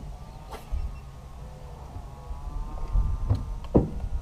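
Low rumble of wind on an outdoor microphone, with a few sharp knocks; the loudest knock comes near the end.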